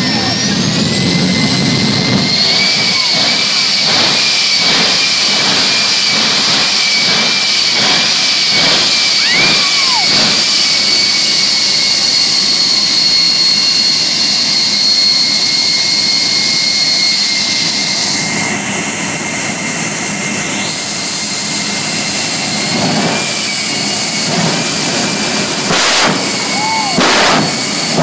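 Jet truck's turbine engine running with a loud, steady high whine, its pitch rising in the first two seconds and then holding. Runs of sharp pops come through as fire bursts from its exhaust stacks.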